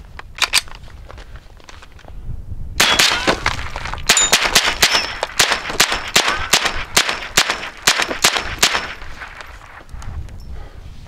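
Sig Sauer 522 semi-automatic .22 LR rifle firing: a sharp report near the start, then a rapid string of shots at roughly three a second for about six seconds, with short metallic pings among them.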